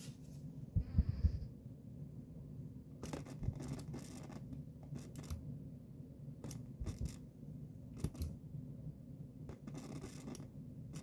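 Scattered scraping, scratching and clicking handling noises over a steady low hum.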